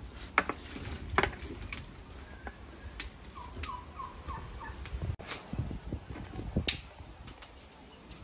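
Dry branches crackling and snapping as they are piled into a wood fire burning in a clay tandoor. There are scattered sharp cracks, the loudest about half a second, a second and nearly seven seconds in.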